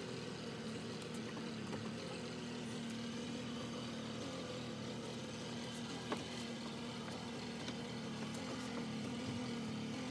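Small boat's engine running steadily at low speed with a low, even hum, and a single light knock about six seconds in.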